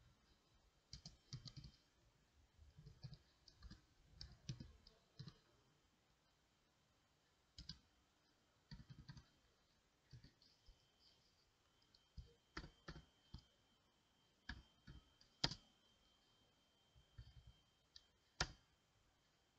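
Faint, irregular clicking of a computer keyboard being typed on, in short clusters with pauses between them.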